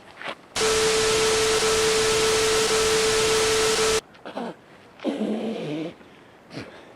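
A loud edited-in blast of static hiss with a steady beep, lasting about three and a half seconds and cut off abruptly. It is followed by a short gliding vocal sound and a wavering, moaning vocal sound.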